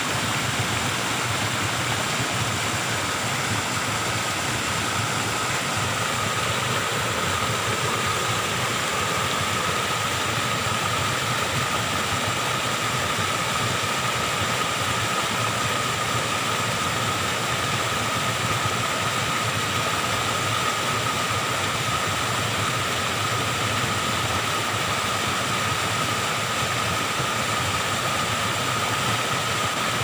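Small forest waterfall swollen by heavy rain: muddy floodwater pouring over rock ledges and churning into the pool below, a steady rushing of water.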